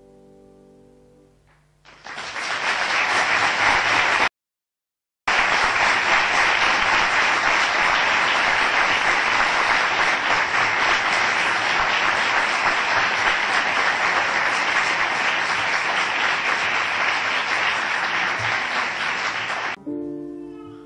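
Grand piano notes die away, then an audience applauds loudly for about eighteen seconds. The applause drops out completely for about a second soon after it starts, and stops abruptly near the end as piano notes sound again.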